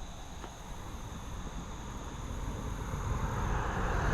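A distant motor noise growing steadily louder, over a steady high insect drone.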